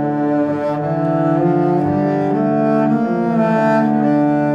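Background music: a slow melody of long held notes in a low, cello-like register.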